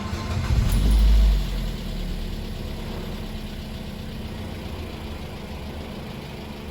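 Mazda3 2.0 four-cylinder engine starting after its repair, with a brief loud surge about a second in, then settling into a steady idle.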